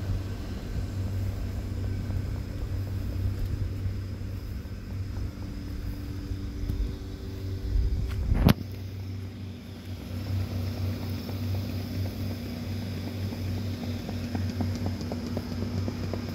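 Steady low hum of the electric blower fans that keep the yard's inflatable Halloween decorations inflated, with one sharp knock about eight and a half seconds in.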